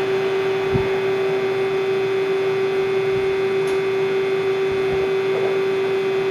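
2004 Ganesh GT 1850 CNC lathe running under power: a steady hum with one strong even whine over machine noise. A single low thump comes just under a second in.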